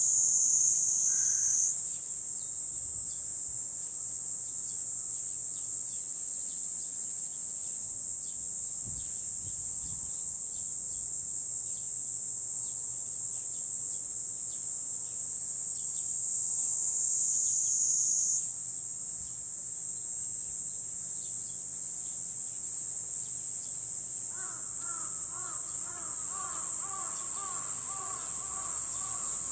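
Cicadas in a loud, continuous high-pitched drone that slowly sinks in pitch and twice jumps back up. Near the end a lower, repeated wavering call joins in.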